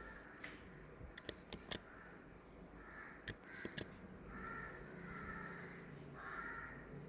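Crows cawing faintly in the background, several short harsh calls in the second half. A few sharp clicks come between about one and four seconds in.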